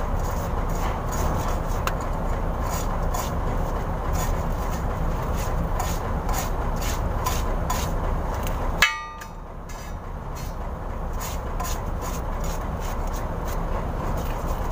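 Brisk scrubbing strokes on the oil-caked differential housing at the pinion seal, about two or three a second, as the grime from the leaking seal is cleaned off. One sharp metallic clank rings briefly just before the middle.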